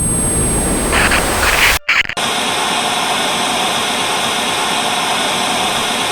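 Loud rumbling, hissing noise that breaks off in a brief stutter about two seconds in. It gives way to a steady wall of white-noise static.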